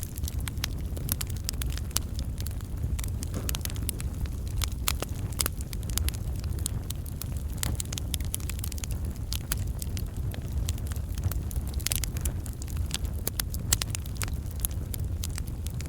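Log campfire burning: frequent irregular crackles and pops from the burning wood over a steady low rumble.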